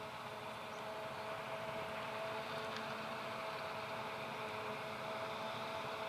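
Claas Jaguar 970 forage harvester running steadily while it chops and blows maize, with the tractor pulling the trailer alongside; a steady whine sits over the even machinery noise.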